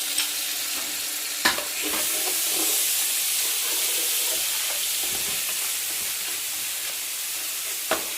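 Ginger-garlic paste, fried onions and whole spices sizzling in hot oil while being stirred and lightly fried, with a steady hiss and spoon scrapes; a spoon clinks sharply against the pot about a second and a half in and again near the end.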